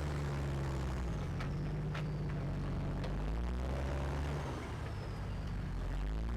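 Modified 4x4 competition truck's engine revving up and down as it works over an off-road obstacle, with a couple of sharp knocks about one and a half and two seconds in.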